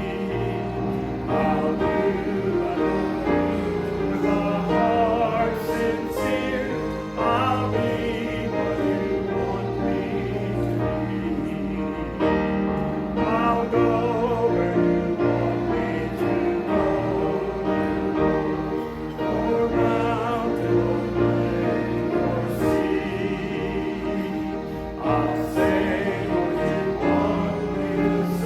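A group of voices singing a hymn together over held instrumental accompaniment.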